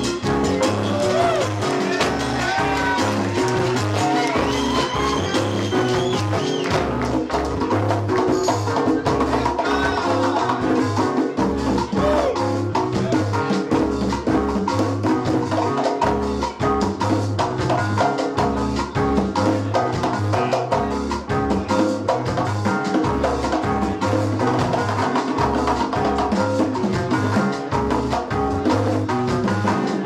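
Live Latin funk band playing a steady groove: electric bass and drum kit carry a repeating pattern under hand percussion, with a gliding melodic line over the top in the first seconds.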